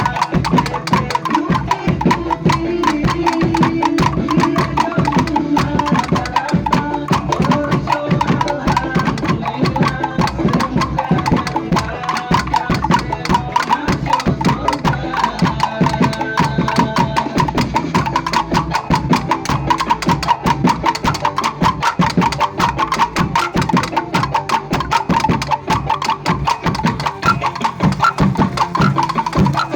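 Music with a fast, busy percussion rhythm of sharp, closely spaced strikes, at a steady level throughout.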